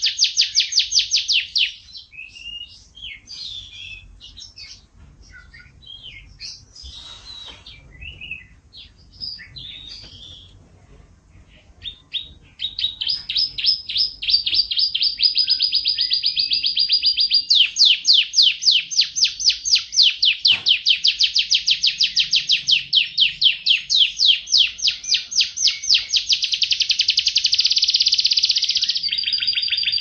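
Canary singing in fast rolling trills of rapidly repeated notes. These break into a stretch of quieter, varied chirps and warbles, and long, loud trills resume about twelve seconds in.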